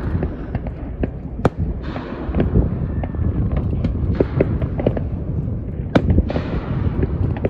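Aerial fireworks going off in quick succession: a string of sharp bangs and crackles, the loudest about a second and a half in and again near six seconds, with stretches of hissing crackle in between.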